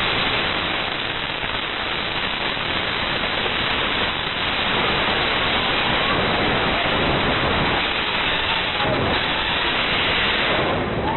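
Continuous loud rushing roar from the 2020 Beirut port explosion, setting in with the blast wave that blows in the room's windows and sending glass and debris flying, and running on steadily with no distinct strokes.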